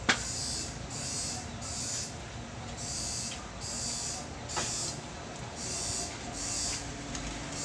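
Light clicks and taps of hands handling wire on a CRT television chassis, the sharpest right at the start. Behind them a rhythmic hiss pulses about one and a half times a second.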